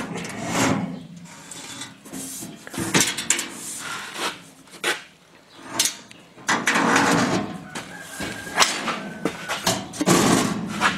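Sheet-metal toolbox, held together with clecos, being turned over and handled on a workbench: a string of irregular metal clunks and knocks, with scraping and sliding between them.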